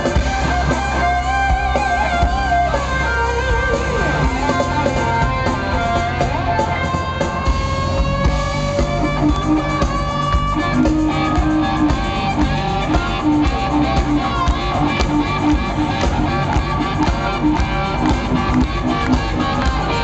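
Live rock band playing loudly, led by electric guitar over bass and drums. The guitar holds long, bending, wavering notes early on, and a rhythm of short repeated notes comes in about halfway through.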